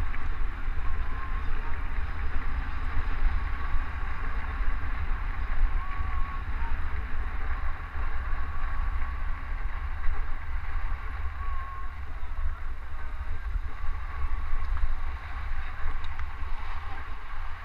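Skis hissing and scraping steadily over packed snow on a downhill glide, with a low wind rumble on the GoPro's microphone.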